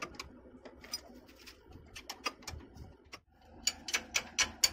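A 19 mm ratcheting wrench clicking as it loosens the alternator mounting bolt on a Nissan Diesel truck engine. A few scattered clicks come first, then from about three and a half seconds in a quick, even run of about five clicks a second.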